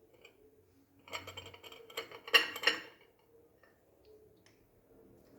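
Kitchenware clinking: a cluster of sharp clicks and knocks from cups and utensils being handled, loudest about two seconds in, then a faint sound of liquid starting near the end as the drink begins to be poured.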